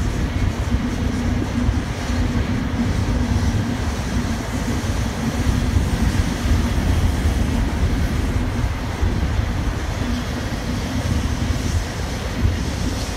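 Double-stack intermodal container train rolling steadily past: a continuous low rumble of steel wheels on the rails, with no let-up.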